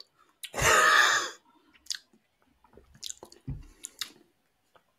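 A person tasting a thick beer after a sip. A loud noisy mouth sound starts about half a second in and lasts just under a second, then come scattered lip smacks and small clicks.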